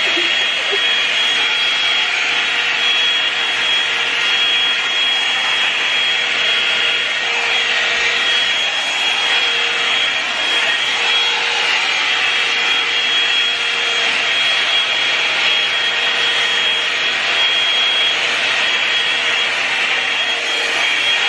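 Revlon One-Step hair dryer brush running continuously on heat. Its fan gives a steady rush of air with a thin high whine over it, as it is drawn through long hair.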